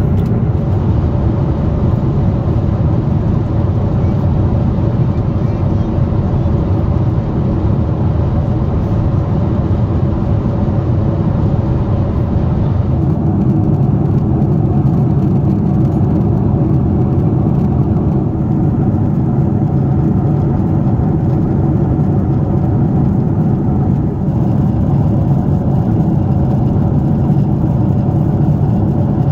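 Steady cabin noise inside a Boeing 747-8i in flight: a continuous rush of airflow with the even drone of its four engines underneath. The higher hiss eases a little about halfway through.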